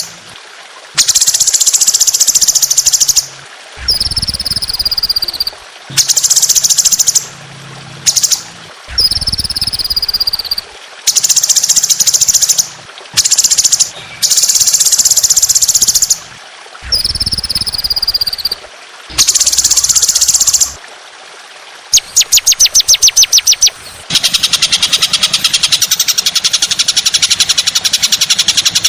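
Songbird song in loud, harsh bursts of rapid high trills, each a second or two long with short gaps, a few of them ending in a falling whistle. Near the end comes a fast run of separate clicking notes, then one long unbroken chatter. It is masteran song, played to tutor cage birds.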